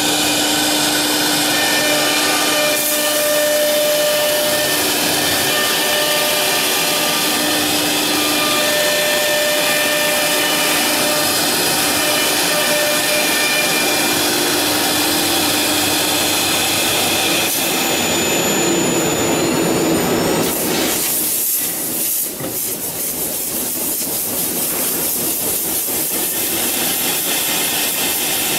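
Four-spindle CNC wood carving router running and cutting into a board: a steady high spindle whine with several held tones over cutting noise. About 21 seconds in the tones drop away, the level dips briefly, and a steady hiss carries on.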